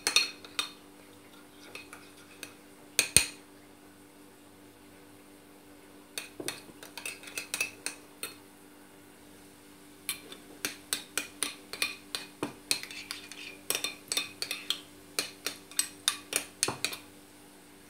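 Metal spoon clinking and scraping against a ceramic dish, stirring harissa with olive oil and water into a paste. A single sharp clink about three seconds in, then two spells of quick, repeated clinks, the longer one toward the end.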